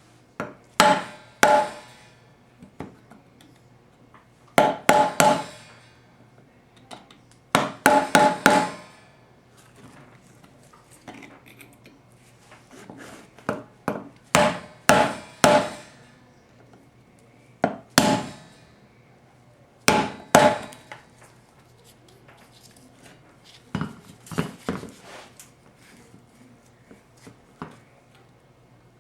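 Hammer blows on metal while a 4L60E transmission pump is being taken apart: sharp strikes in groups of one to four, spaced a few seconds apart, most leaving a brief metallic ring.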